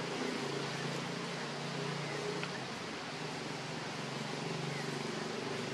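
Steady outdoor background hum under a constant hiss, with a few faint short chirps.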